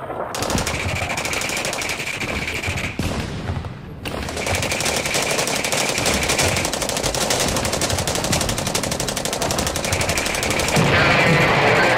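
Airsoft guns firing rapid full-auto bursts: a fast, continuous clatter of shots that dips briefly about four seconds in.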